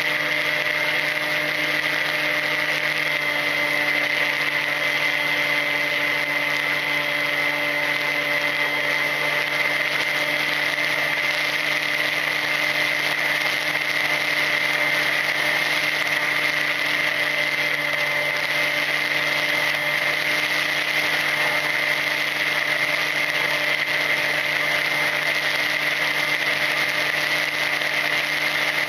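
Brushless electric motor and propeller of a Ranger EX FPV model plane running at a steady throttle: a constant high whine over a hiss of rushing air, heard from the plane's onboard camera.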